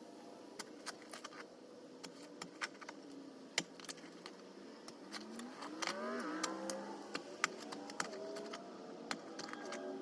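Light, irregular metallic clinks and clicks of chains and clamp hardware being handled while a slab-lifting rig is set up. From about five seconds in, a passing vehicle's engine hum rises and then falls in pitch.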